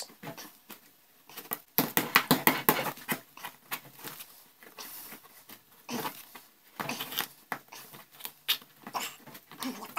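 Kitchen knife cutting round the lid of a Fray Bentos pie tin, the blade sawing and levering through the thin tinplate in quick bursts of sharp metallic scraping and clicking, played sped up. There are two busy bursts, one about two seconds in and a longer one from about seven seconds, with quieter stretches between.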